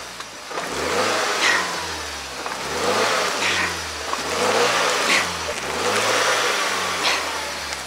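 Car engine revving in about four repeated surges, roughly two seconds apart, as the car tries to pull out of mud where it is stuck.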